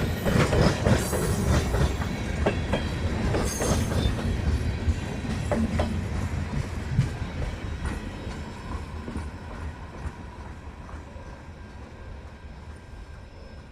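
Freight cars of a manifest train rolling past with clickety-clack and clanks over the rail joints. The sound fades steadily as the train moves away.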